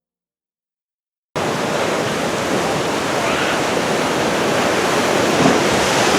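Silence, then about a second in a steady rush of heavy surf from big typhoon swell starts abruptly.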